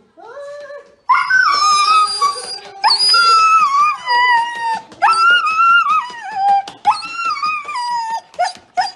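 Husky howling in long wails that each start high and slide down in pitch, four in a row, after a short quiet rising whine; a few short yips come near the end.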